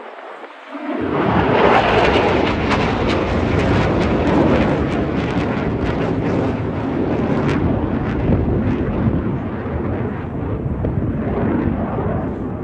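A military jet flying past: loud, deep engine noise comes in suddenly about a second in, with sharp crackling through the first several seconds, then slowly eases off.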